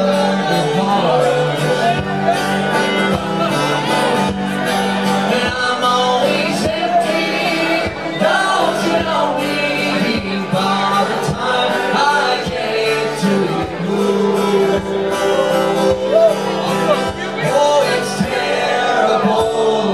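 Fiddle and strummed acoustic guitar playing live country-folk: the fiddle carries a wavering melody over a steady strummed rhythm.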